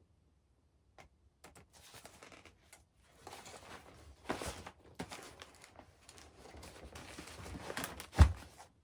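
Rustling and handling of a packed nylon backpack, fabric and cords shuffling in irregular bursts, ending in one sharp low thump as the pack is set down, near the end.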